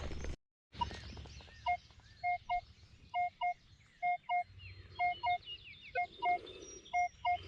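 Metal detector giving target beeps: short electronic tones in pairs, about one pair a second, repeating.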